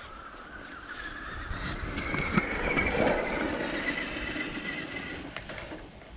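Electric RC car motor whining as the car drives across gravel. The pitch climbs over the first two seconds, then holds before fading out near the end, with the tyres crunching on loose stones at the loudest point midway.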